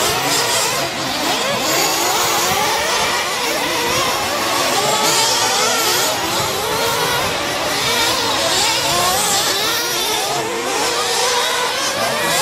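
Several radio-controlled off-road race truck engines running at high revs together, a shrill whine whose pitch keeps rising and falling as they accelerate and brake around the track.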